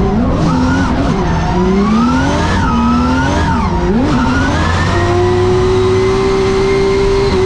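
Drift car's engine heard from inside the cabin during a drift run. The revs rise and fall sharply for the first few seconds, then hold steady at high revs from about halfway, over tyre noise.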